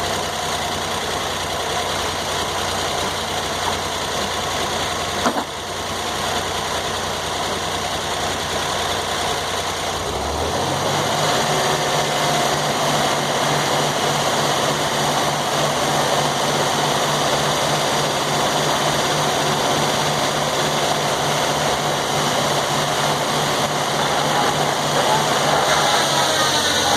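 Sawmill's engine running steadily, with a single knock about five seconds in. About ten seconds in the engine speeds up and holds a higher, evenly pulsing note, running a little louder from then on.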